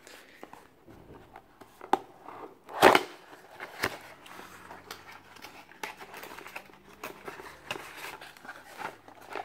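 Small cardboard box being handled and its end flap opened by hand: scattered rustles, scrapes and taps of the card. The loudest knock comes about three seconds in.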